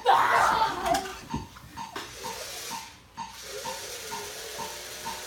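A repeating ticking, short high pips about two a second, from the small object found to be the source of the mysterious ticking noise. A loud burst of noise fills the first second, and a faint steady hum comes in about halfway through.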